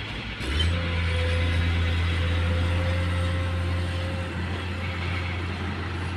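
Heavy diesel engines running: a dump truck drives past close by while a Komatsu PC210 hydraulic excavator works. A deep engine drone rises sharply about half a second in and then holds steady, with a steady higher hum over it for a few seconds.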